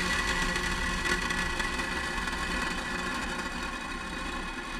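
Falcon 9 rocket engines rumbling steadily during ascent just after liftoff, slowly fading.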